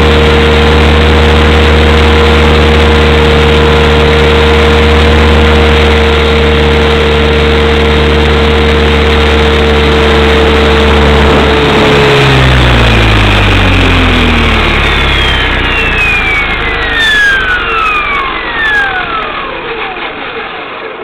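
Small engine running steadily, close and loud, then cut about twelve seconds in and winding down, its pitch falling slowly and fading as it spins toward a stop.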